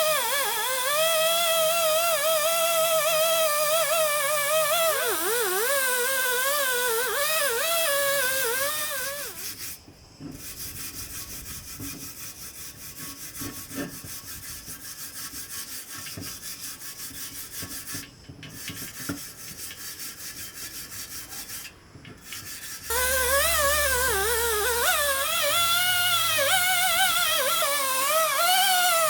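Background music with a wavering melody gives way in the middle to about thirteen seconds of repeated rubbing and scraping strokes, typical of scrubbing rust off metal parts, then the music returns.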